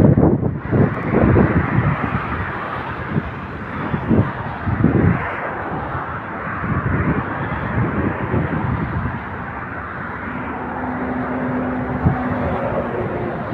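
Heavy trucks passing close on a wet road, with gusts of wind buffeting the microphone in the first half. A steady engine drone comes in near the end.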